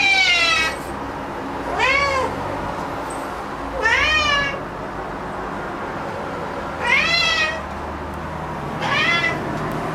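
Domestic cat meowing loudly and repeatedly: five drawn-out meows about two seconds apart, each rising then falling in pitch. The cat is worked up at having spotted an insect.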